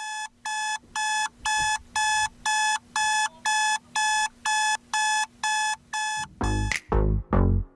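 Digital alarm clock beeping in a steady, even pulse of identical high beeps, about two a second. About six and a half seconds in the beeping stops and electronic music with heavy bass beats starts.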